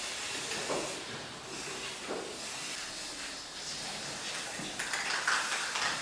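Aerosol spray-paint can hissing as paint is sprayed onto a wooden birdhouse.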